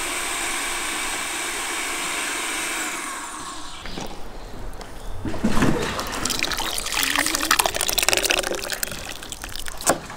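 A steady hiss for the first three seconds or so, then thick tomato sauce poured from a blender jug into a hot pan of browned rabbit pieces: splashing and sizzling as the liquid hits the pan. A knife knocks on a wooden cutting board right at the end.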